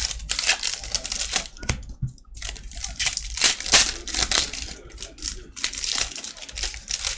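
Foil wrappers of 2018-19 Panini Court Kings basketball card packs being torn open and crinkled by hand: an irregular run of crackling, rustling and tearing.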